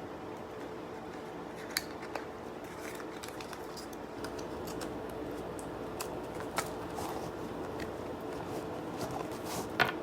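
Scattered sharp clicks and light handling noises of small cosmetic packaging being handled and opened, over a steady low hum.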